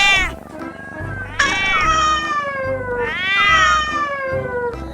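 Domestic cat meowing: two long drawn-out meows, each rising then falling in pitch, after the tail end of a first one.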